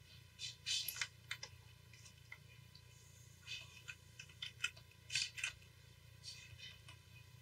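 Irregular clusters of short clicks and scratchy taps from computer input devices, in three bunches, over a low steady hum.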